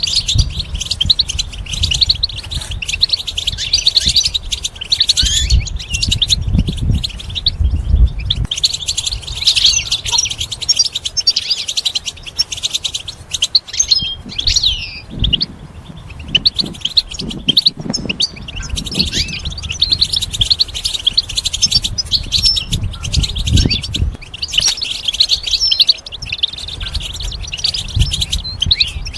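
European goldfinch singing: a fast, almost continuous twittering of short chirps and trills, with a brief lull about halfway through.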